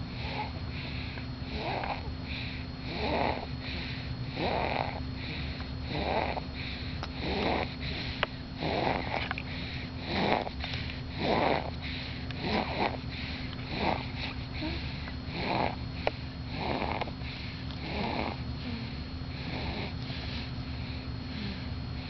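A person snoring in their sleep, a noisy breath about every second and a half, over a steady background hum.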